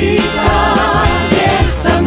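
Several voices singing a cheerful song together over an instrumental backing with a steady beat.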